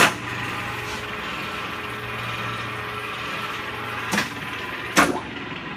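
Cincinnati Bickford Super Service drill press engaging with a loud clack, then its geared head running steadily at 75 RPM with a hum and gear whine. Two more sharp clacks come about four and five seconds in as the spindle control lever is worked.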